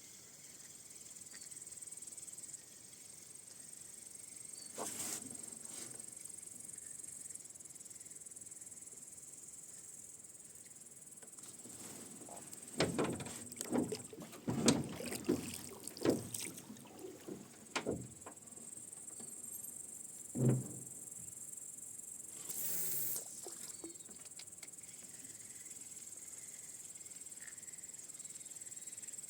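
Insects chirring steadily in a high band. Partway through, a run of knocks and splashes from the boat's oars and oarlocks is heard, then a single thump and a short splash.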